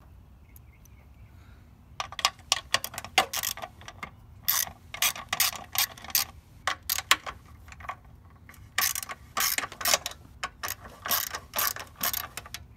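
Hand socket ratchet clicking in quick runs as a bolt is turned, starting about two seconds in, with short pauses between strokes.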